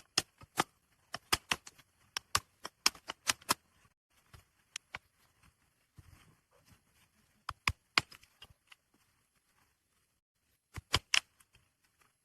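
A series of sharp, irregular clicks and snaps, coming in clusters: a quick run at the start, a few more about halfway, and a tight group near the end, with near silence between them.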